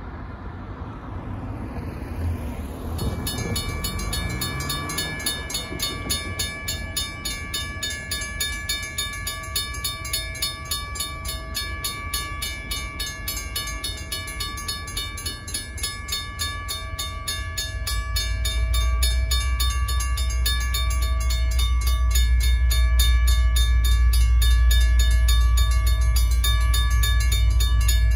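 A car passes, then about three seconds in the railroad crossing warning bells start ringing steadily and fast. From about halfway through, the low rumble of approaching EMD diesel locomotives (GP39-2 and GP40-2) grows louder and becomes the loudest sound.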